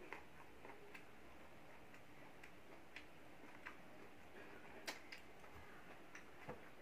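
Quiet eating by hand: faint, irregular mouth clicks and smacks of chewing, with fingers picking at food on a plate, one sharper click near the middle.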